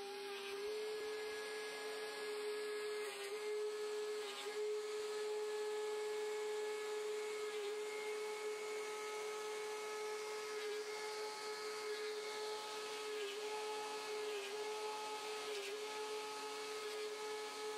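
DeWalt 735X thickness planer starting up and running with a steady whine. Its pitch dips briefly several times as a thin pine board, taped to a melamine carrier board, feeds through the cutterhead.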